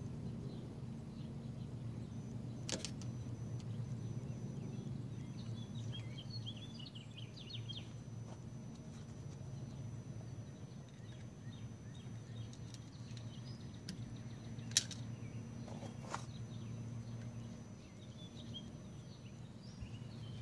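Steady low outdoor background hum with faint bird chirps about six to eight seconds in, and three short sharp clicks, the loudest about fifteen seconds in.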